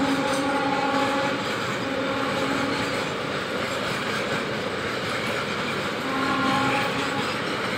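Container freight train's loaded wagons rolling past, a steady rumble of steel wheels on the rails. A train horn's chord carries on for the first second or so and sounds again briefly about six seconds in.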